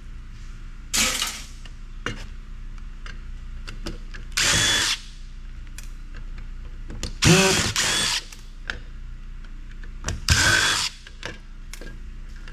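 Power drill running in four short bursts, each lasting about half a second to a second.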